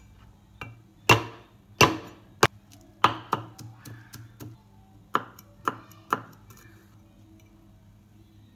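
Cleaver chopping garlic and chillies on a round wooden chopping board: a dozen or so sharp knocks at an uneven pace, stopping about six seconds in.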